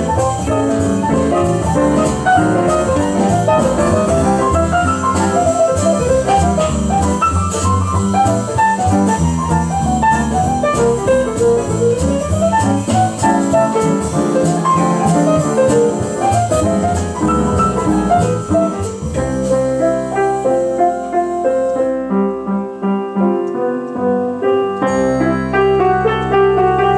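Freshly tuned Rönisch upright piano being played: a busy passage of many quick notes that thins out to a sparser, gentler one about two-thirds of the way through.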